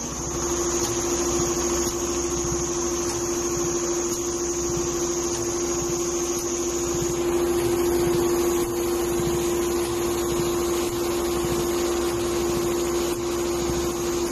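Four-head computerized leather pattern sewing machine running, a steady hum over a fast, even chatter of stitching, with a high whine that stops about halfway through.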